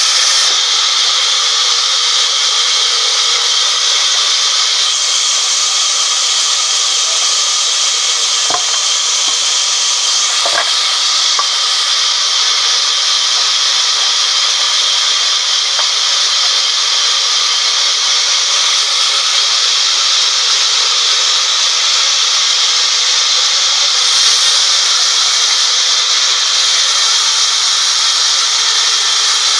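Sawmill band saw blade cutting lengthwise through a teak log, a loud, steady, high hiss as the log is fed through, with a couple of brief knocks about a third of the way in.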